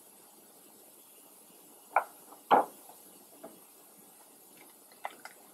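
Handling noise: a few short clicks and knocks as small powder-gun parts and a plastic parts bag are handled. Two louder knocks come about two seconds in, half a second apart, and fainter clicks follow.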